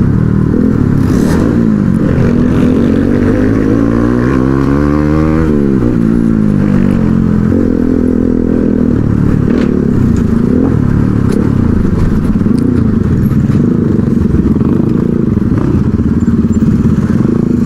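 Motorcycle engine running under way, heard from the rider's seat. About four seconds in, the engine's pitch climbs for a second or so and then drops sharply; after that it runs on unevenly with the traffic.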